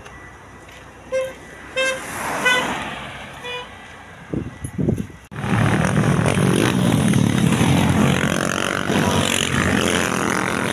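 A few short car-horn toots, then, after a sudden cut, loud, steady road-traffic noise as cars pass close by.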